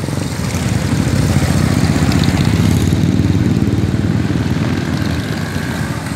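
Vintage motorcycle engines running at low speed as the bikes ride past close by, a steady, rapid low beat.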